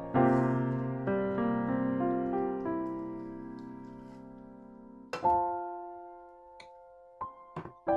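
Background piano music: chords and single notes struck and left to ring and fade slowly, with a fresh chord about five seconds in.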